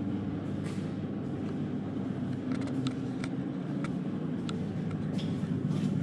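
Steady low mechanical hum with a few light clicks and taps.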